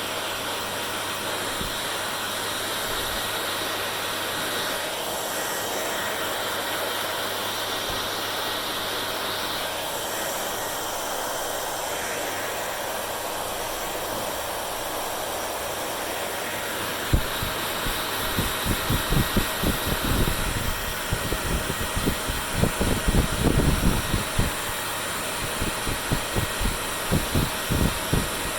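Hand-held hair dryer blowing with a steady rushing hiss and a low hum. From a little past the middle, a run of irregular low thumps sounds over it.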